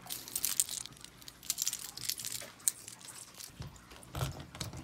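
Rustling and light clicking of hands and phone against a reptile enclosure, then a key worked in the lock of the terrarium's sliding glass doors, with a few dull knocks near the end.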